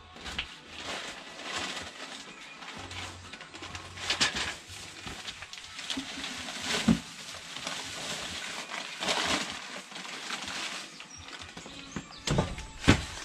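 Plastic and paper bags crinkling and rustling as they are handled, with a few sharp knocks and thumps, the loudest near the end.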